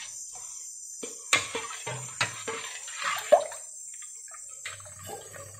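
Steel ladle stirring thin neer dosa rice batter in a steel pot, mixing in salt: soft liquid swishing with a few sharp clinks of the ladle against the pot, the loudest a little past the middle.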